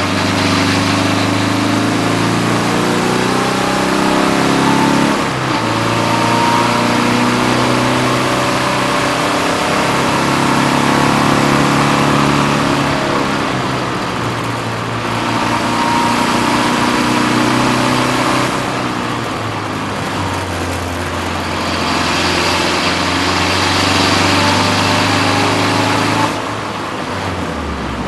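BMW 330d race car's diesel engine heard from inside the cockpit at racing speed. The revs climb and fall back several times as the car accelerates, shifts and lifts through the corners, over a steady rush of wind and road noise.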